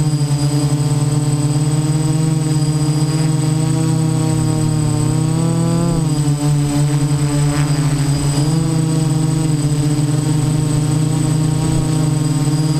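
Y6 hexacopter's six brushless motors and 10-inch propellers buzzing steadily, heard from on board the aircraft, with a thin high motor whine over it. The pitch sags and recovers twice around the middle as the throttle changes.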